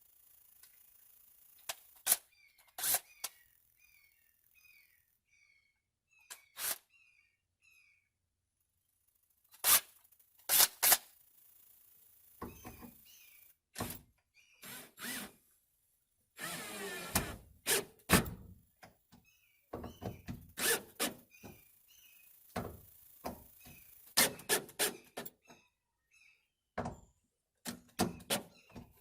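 Irregular knocks and thunks from hand work fitting a PVC-and-golf-ball door catch to a door, with a rough stretch of noise lasting a second or two a little past halfway. Short high chirps, like birds, sound between the knocks.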